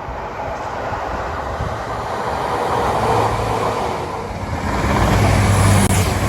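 Class 150 Sprinter diesel multiple unit approaching and passing, its underfloor diesel engine drone and rail rumble growing louder toward the end.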